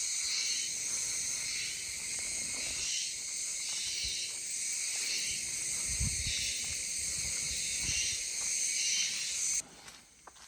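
A loud, dense, high-pitched insect chorus pulsing unevenly, which cuts off abruptly near the end.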